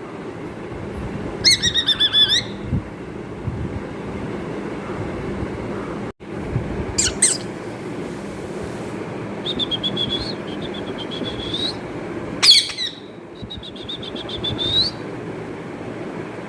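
Pet parrot calling: a few short, high squawks and two longer rapid chattering trills, the loudest a sharp squawk about twelve seconds in, over a steady low background noise.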